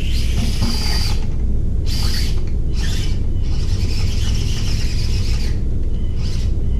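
Axial SCX24 micro RC crawler's small electric motor and gearbox whining in on-off bursts as throttle is blipped, with the truck struggling for traction on a steep climb. The longest burst lasts about two seconds near the middle. A steady low rumble runs underneath.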